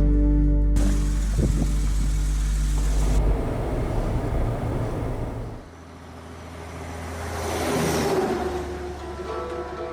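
A motor vehicle driving by, its engine and road noise swelling to a peak about eight seconds in and then fading, over background music.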